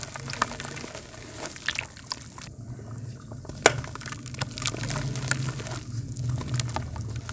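Dry mud chunks crumbling in the hands, crumbs and powder dropping into a tub of water with small splashes and scattered crisp crackles, and one sharp snap a little past halfway.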